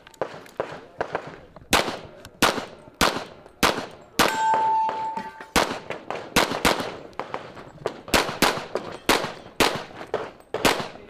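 A rapid string of pistol shots, roughly two a second, with steel targets ringing as they are hit. A little after four seconds in, a shot timer gives a steady beep of about a second.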